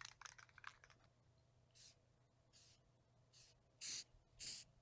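Rust-Oleum Rust Reformer aerosol can sprayed in short hissing bursts onto bare-metal spots, about five of them, the last two louder, after a few faint clicks.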